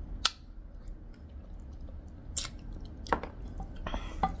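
A person chewing pork trotter, with about four short sharp wet mouth smacks spaced across the few seconds.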